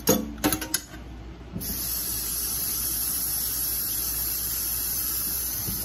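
A few quick knocks, then a steady high hiss that starts about a second and a half in and cuts off sharply near the end.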